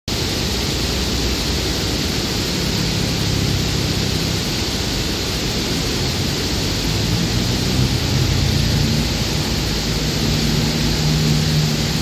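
Steady rain falling, an even hiss. A low hum, like a distant engine, comes in a few seconds in and grows stronger in the second half.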